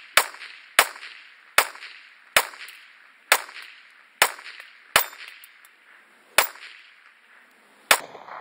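Gen 4 Glock 17 9mm pistol with a Lone Wolf threaded stainless barrel, fired without a suppressor: nine shots in slow, uneven succession, roughly a second apart, each followed by a short echo. The pistol cycles every round without a stoppage.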